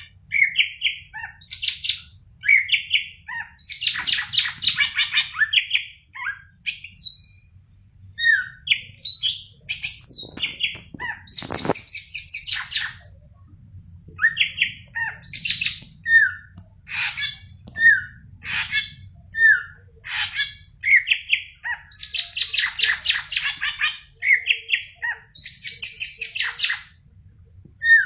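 Greater green leafbird (cucak ijo) singing continuously: a varied run of sharp chirps, whistled notes and warbled phrases, one after another with short gaps. A single sharp click sounds about eleven seconds in.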